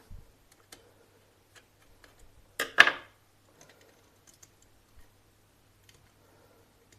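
Small plastic-and-metal clicks and taps of a screwdriver and wire ends being worked into the screw terminals of a switch-socket plate, with one louder short clatter a little under three seconds in.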